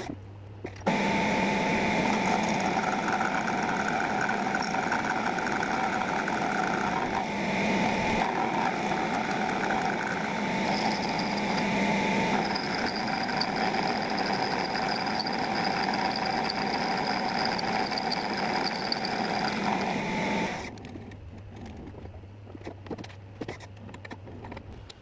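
Metal lathe running, spinning a fly-cutting head that mills the side face of a metal block on the carriage: a steady machine hum with several steady whining tones. It stops about 21 seconds in, leaving a quieter stretch with light clicks.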